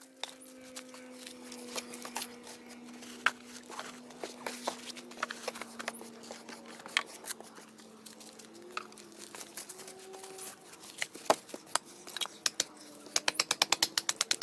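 Dry kindling crackling and popping on hot campfire coals as it smokes. The pops come thick and fast near the end as the kindling nears catching fire.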